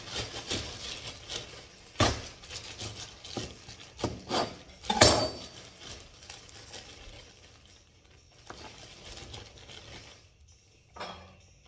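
Kitchen items being handled on a countertop: several sharp knocks and clatters, the loudest about two and five seconds in, then only light scattered knocks.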